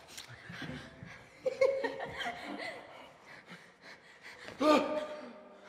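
People laughing and giggling, with two louder laughs about a second and a half in and near the end.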